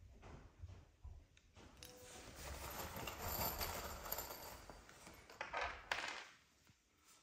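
Hands handling small wall-mount hardware on a cardboard box: a stretch of rustling, then a few sharp clicks of screws and small parts being picked up and set down about five to six seconds in.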